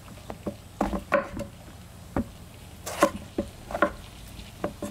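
Kitchen knife slicing through a king oyster mushroom and knocking on a wooden cutting board, about ten irregular sharp knocks.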